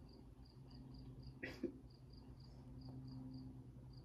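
Faint cricket chirping, short even chirps at about four a second, over a low steady hum, with one brief soft noise about one and a half seconds in.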